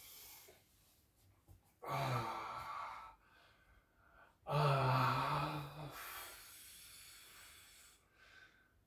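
A man's voiced sighs on the out-breath, two of them: one about two seconds in and a louder, longer one about halfway through, trailing off into breathing.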